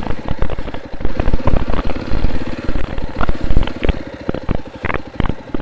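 Dirt bike engine running as it rides along the trail, picked up close by a helmet-mounted microphone, with a choppy, uneven rumble.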